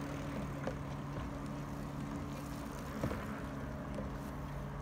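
Steady hum of an engine running at constant speed, with a short knock about three seconds in.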